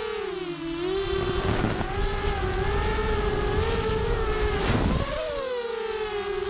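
FPV racing quad's brushless motors (Cobra 2204 2300kv spinning 5-inch props) whining, heard from the onboard camera. The pitch dips near the start as the throttle comes off, rises and holds steady, then dips again about five seconds in after a brief rush of wind.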